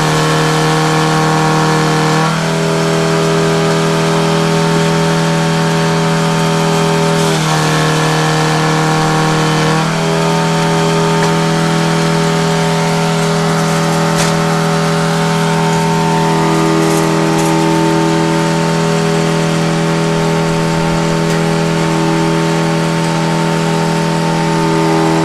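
An engine running steadily at constant speed, its tone shifting slightly a few times without a change in loudness.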